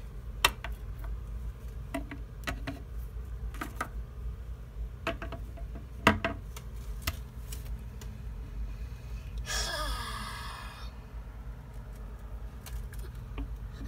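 Small plastic toy figures being handled and set down on a hard surface, a scattering of light clicks and taps over a low steady hum. About ten seconds in, a short vocal sound falls in pitch over about a second.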